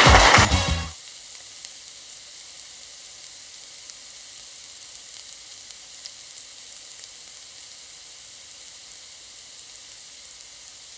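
Music cuts off about a second in. After that, breaded fish sticks frying in hot oil give a steady sizzle with small crackles and pops.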